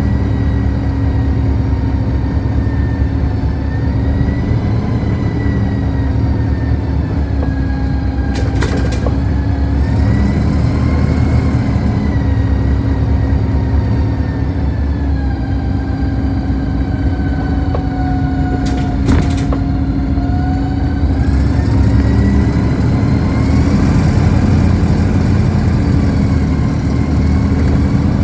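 Inside a moving city bus: a steady low rumble of drive and road noise, with a whine whose pitch slowly rises and falls as the bus changes speed. Two brief double clicks sound about 8 and 19 seconds in.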